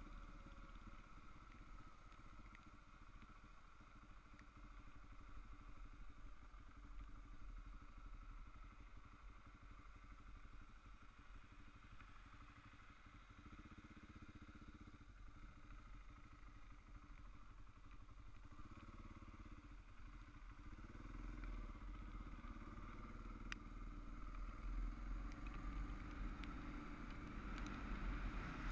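Motorcycle engine running steadily at low road speed, faint, getting louder over the last few seconds.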